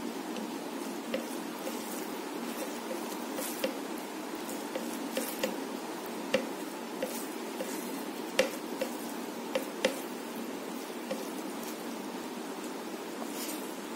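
Eating by hand: fingers mixing rice with chicken curry on a plate and the mouth chewing, heard as scattered short wet clicks and squishes over a steady background hiss.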